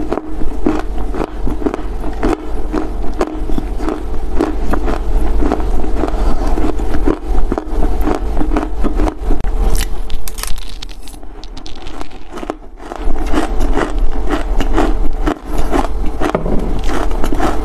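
Dry Chinese loess earth crunching and crackling close to a clip-on microphone, in a dense run of small sharp cracks that thins out briefly past the middle, over a steady low hum.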